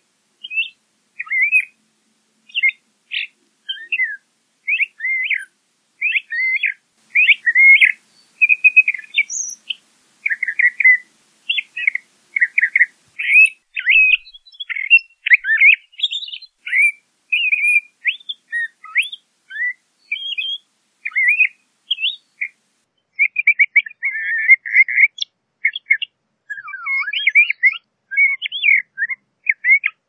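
LeConte's thrasher singing: a steady stream of short, varied phrases of quick up-and-down notes, about one or two a second, with brief gaps between them.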